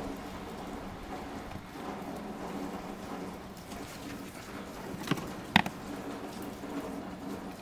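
Two sharp clicks about half a second apart, the second louder, as a screwdriver tip meets the screw of a scooter's plastic battery hold-down bracket, over a steady hiss and low hum.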